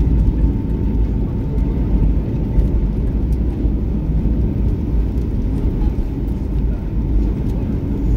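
Jet airliner cabin noise while rolling along the runway after landing: a steady low rumble of engines and wheels, with a faint steady tone above it.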